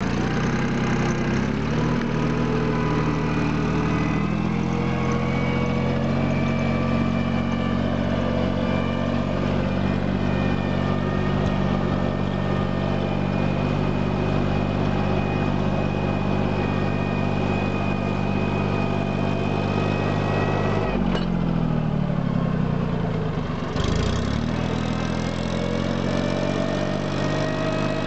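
Three-cylinder diesel engine of an STS T204 compact tractor running steadily while pulling a plough through soil. About three quarters of the way through, the engine speed drops and briefly dips, then picks back up.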